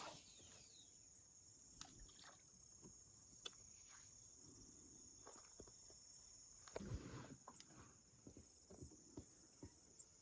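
Faint, steady high-pitched chirring of night insects, with a few light clicks and a brief soft knock or rustle about seven seconds in.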